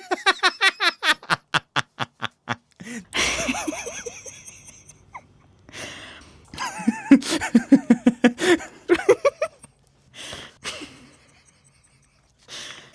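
A string of different human laughs one after another: first a rapid run of short 'ha-ha' bursts, then a breathy laugh, then a lower-pitched run of 'ha' syllables about halfway through, and a few short bursts near the end.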